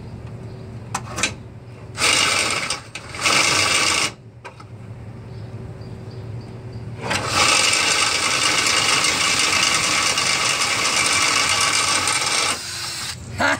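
Ryobi 18-volt cordless drill spinning a rusted 5/16 in. carriage bolt against a hacksaw blade held still on its threads. A steady motor hum runs throughout. Loud rasping of the blade on the turning steel comes in two short spells about two and three seconds in, then a long spell from about seven seconds to near the end.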